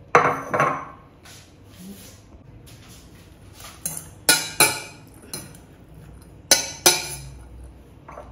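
Fork and bowls clinking as shredded cabbage, carrot and chicken are tossed in a stainless steel mixing bowl: sharp metallic clinks with a brief ring, two near the start, a few more about halfway through and two more near the end.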